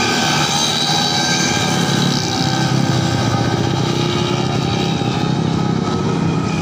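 Several racing automatic scooters of a 130cc class running at high revs around the course, their engines whining together steadily.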